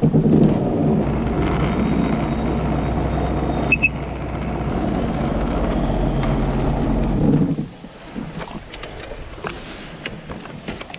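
Sea Doo GTX 170 jet ski engine running steadily at low speed, then stopping suddenly about three-quarters of the way through. Faint small knocks and water sounds follow.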